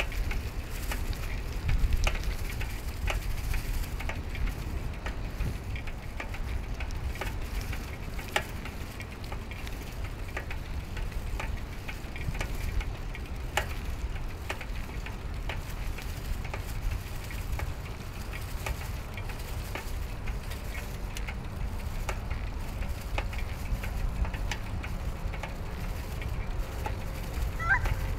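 Steady rumble of wind and tyre noise from a bicycle riding on a paved road, picked up by a handlebar-mounted camera, with scattered clicks and crackles. A brief rising chirp near the end.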